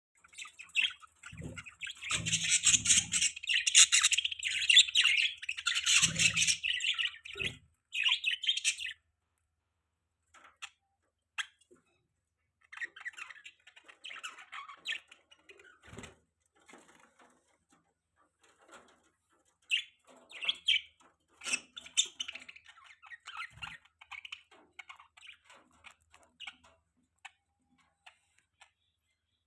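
Budgerigars chirping and warbling: a loud, dense stretch of chatter for the first several seconds, then quieter, scattered chirps.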